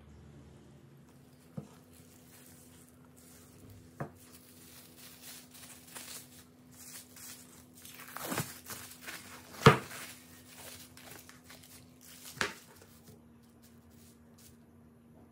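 Plastic cling film crinkling and rustling as it is handled and pulled open around a log of grated zucchini dough, with a few sharp knocks, the loudest about ten seconds in. A faint steady hum sits underneath.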